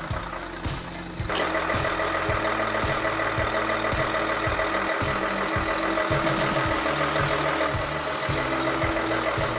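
A heavy truck engine running hard, coming in loudly about a second in with a steady whine over its noise, then cutting off sharply at the end. Background music with a steady beat plays underneath.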